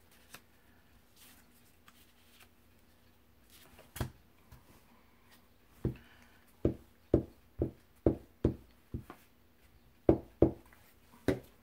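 Glue stick rubbed in short strokes over a small paper scrap lying on a book page on the craft table. Each stroke is a thump, about two a second, with a pause around the middle.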